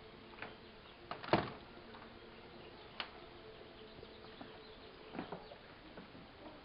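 A door being opened, with a sharp clack about a second in, then a few scattered knocks and clicks. A faint steady hum lies under it.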